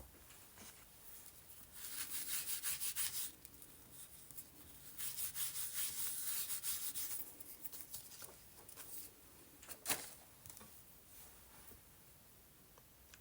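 Quick, repeated rubbing strokes on paper as ink is rubbed in to colour it, in two bursts of about one and two seconds. A single sharp tap follows a little later.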